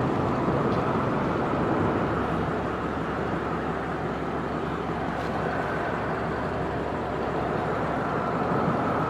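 Steady engine and road noise of a Chrysler 300 driving along a city street, with no revving or sudden sounds.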